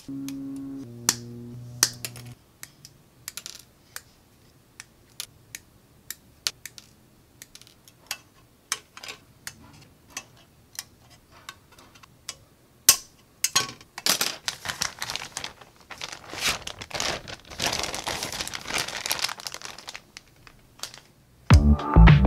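Side cutters snipping plastic model-kit parts off their sprues: a series of sharp, irregularly spaced clicks. From about 14 to 20 seconds in there is a stretch of scratchy rustling as the plastic is handled, and background music comes in loudly near the end.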